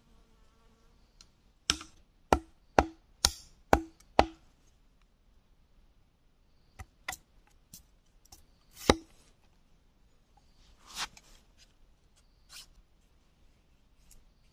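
A large knife blade chopping into a bamboo stick: six quick sharp strikes about half a second apart, then a few scattered cuts, the loudest about nine seconds in.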